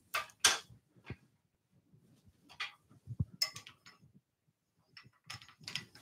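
Scattered light clicks and knocks of a square softwood blank being handled and seated between a wood lathe's headstock drive and its tailstock live centre, with the lathe switched off; the sounds come in small clusters near the start, around the middle and near the end.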